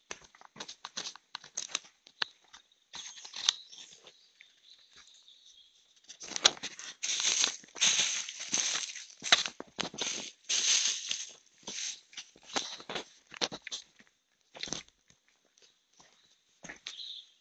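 Footsteps crunching and rustling over dry leaf litter and twigs on a forest path, as irregular crackles that grow louder and denser in the middle.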